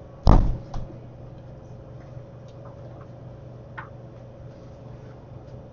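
A loud sharp knock about a third of a second in, a smaller knock just after, then a few faint clicks, over a steady low hum.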